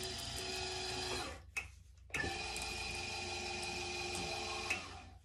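Electric motor of an ElectroPress bath bomb press whining steadily as it drives the press. It stops about a second and a half in, starts again abruptly about two seconds in, and runs until just before the end.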